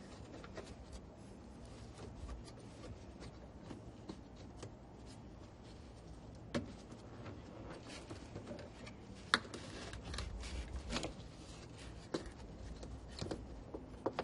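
Scattered clicks, taps and rubbing of hands and tools handling washing machine motor parts, with a sharper knock about nine seconds in.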